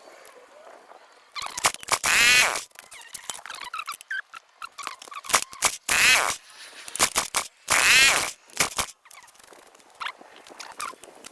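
Mini bike's small engine being pull-started by its recoil cord: three quick whirring pulls, the first about a second and a half in and the last two close together near the end, with the engine not catching, just after the carburettor's air-fuel mixture screw was turned.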